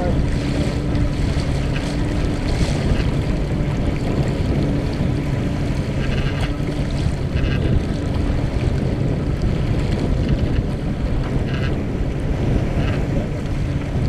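Wind buffeting the microphone and water rushing along the hull of a Mumm 36 sailboat under sail, a steady loud rush. A faint low steady hum runs underneath for about the first half.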